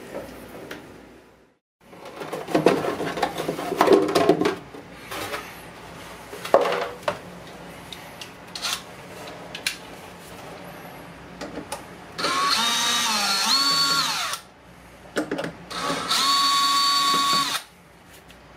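A cordless drill/driver runs in two bursts of about two seconds each, its motor whine stepping up and down in pitch as it turns screws on the Furuno DFF3D sounder's metal housing. Earlier there is rustling and a few clicks from handling cables.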